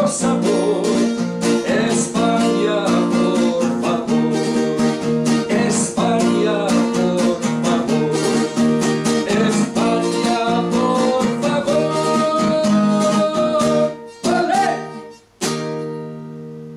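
Round-back acoustic-electric guitar strummed fast and steadily in a Spanish-style accompaniment. Just after 14 s it breaks off, and a final strummed chord is left ringing and fading away.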